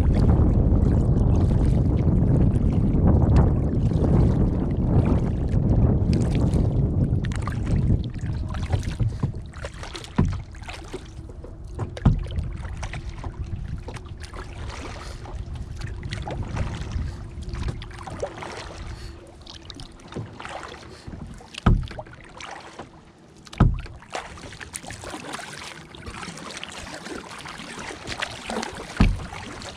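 Wind rumbling on the microphone for the first eight seconds or so, then quieter water lapping at a kayak's hull, with a few short low thumps.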